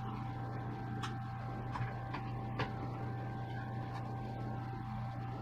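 A few light plastic clicks as the Tab keycap and its stabilizer are worked onto an Amiga 500 keyboard, over a steady low hum.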